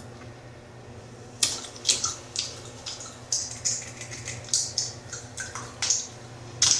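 Bubblegum being snapped and popped in the mouth: a run of sharp, wet snaps, roughly two a second, starting about a second and a half in.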